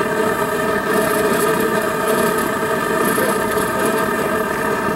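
Gas burner fed through a hose, running steadily inside a steel engine-manifold prop that it holds at about 800 °F.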